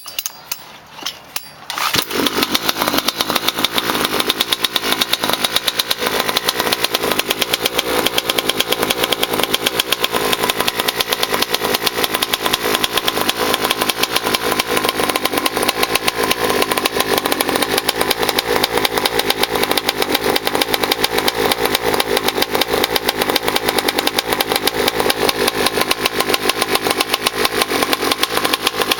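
Go-Ped's small two-stroke engine with a tuned expansion pipe, started cold: a few short sounds, then it catches about two seconds in and runs steadily.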